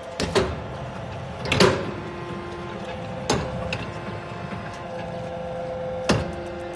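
Hydraulic charcoal briquette tablet press running with a steady machine hum, broken by four loud, sharp metallic clanks at uneven intervals as the press cycles.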